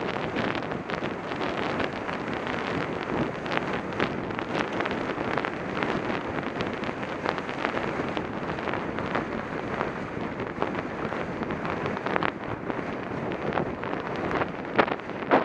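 Wind buffeting a helmet camera's microphone as the rider gallops on horseback, with many faint irregular knocks mixed into the rush.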